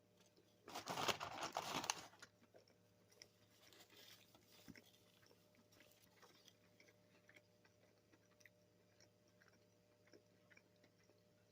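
Person eating fast food: a loud crunchy burst lasting about a second, starting about a second in, then faint chewing and small clicks.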